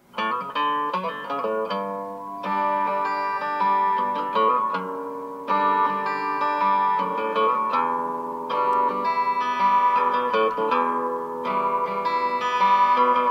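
Acoustic guitar ballad music playing from an Amazon Echo Dot through a 3D-printed gramophone-style horn, with plucked notes.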